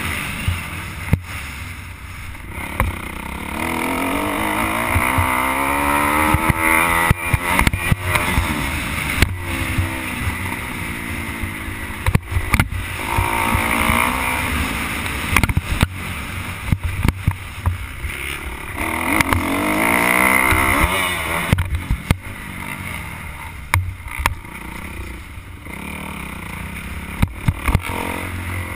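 Dirt bike engine revving up and falling back again and again as it is ridden round a motocross track, with its pitch climbing and dropping several times. Wind buffets the helmet-mounted microphone and short knocks come from the bumps.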